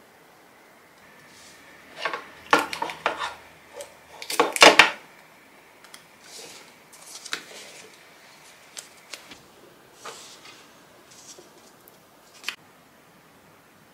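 Hands packing a cardboard gift box with a card and ribbon: scattered taps, clicks and paper rustles, loudest in two clusters about two and four and a half seconds in, with one sharp click near the end.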